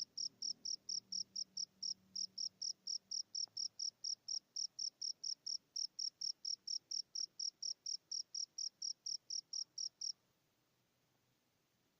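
A cricket chirping in a fast, even rhythm of high chirps, about four a second, that stops suddenly about ten seconds in.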